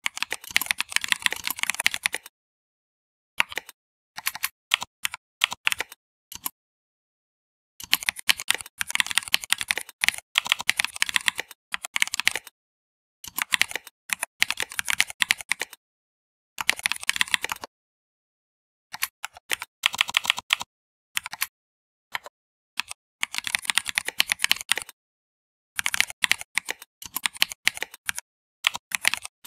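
Typing on a computer keyboard: quick runs of keystrokes broken by pauses of a second or so of dead silence.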